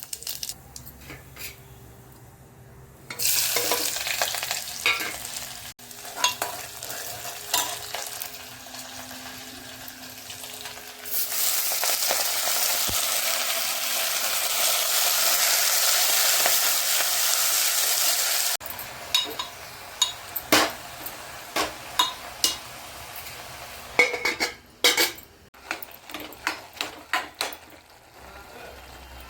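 Food sizzling in a hot pan while a spoon stirs it, knocking and scraping against the pan. The sizzle is loud in two stretches, from about three to six seconds in and from about eleven to eighteen seconds, with separate clicks and knocks of the spoon in between and toward the end.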